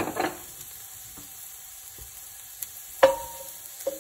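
Diced onion, carrot and celery sizzling in oil in an enameled cast-iron pot. There is a sharp click at the start, then two knocks with a short ring, about three seconds in and again just before the end, as a wooden spoon goes into the pot to stir.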